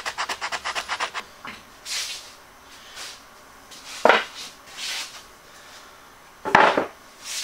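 Sandpaper on a foam pad rubbed quickly back and forth along a wooden edge, about ten strokes a second, for the first second or so. Then wooden stools are set down on the floor and a plywood table top is set onto them, with a sharp wooden knock about four seconds in and a louder one near the end.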